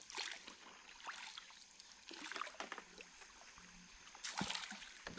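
Water sloshing and splashing, with small scattered knocks and a louder splash a little over four seconds in.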